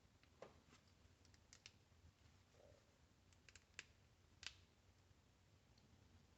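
Near silence with about a dozen faint, scattered clicks and ticks, the sort made by small tools and parts being handled during disassembly; the loudest click comes about four and a half seconds in.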